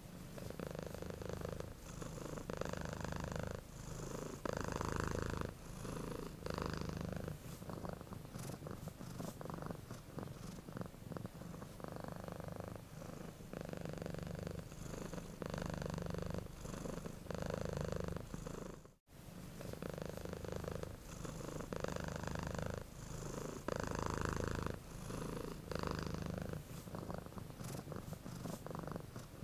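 A cat purring steadily, the low rumbling purr swelling and easing with each in-breath and out-breath. It drops out for an instant about two-thirds of the way through, then carries on.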